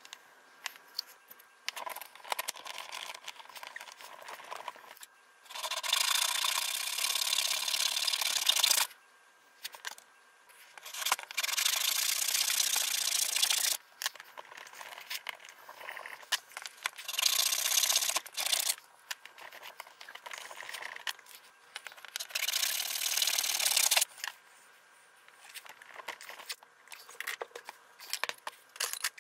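Small layered wood veneer block being sanded or filed by hand: four spells of a few seconds each of steady scratchy rubbing, with lighter scrapes and taps between.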